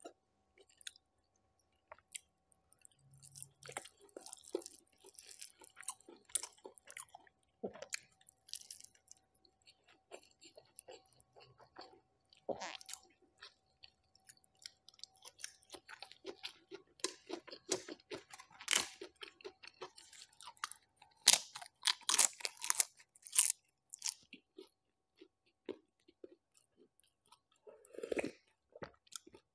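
Close-miked chewing and crunching of a meal of rice with crisp fried topping, papad and curry, with wet mouth sounds and clicks; the crunching grows louder and busier after about the middle. Near the end there is a sip of broth from a spoon.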